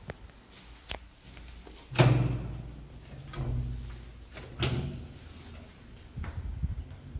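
The doors and latches of a 1960s ZUD passenger lift being worked: a run of clicks and metal bangs with a low rumble after each. The loudest bang comes about two seconds in, another just before five seconds, and a cluster of rattles near the end.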